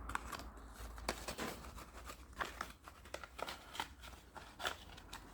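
Cardboard bulb packets and bulbs being handled: a run of small irregular clicks, taps and rustles over a faint steady low hum.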